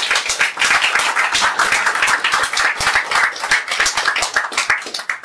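Audience applauding: many hands clapping in a dense patter that thins out and stops near the end.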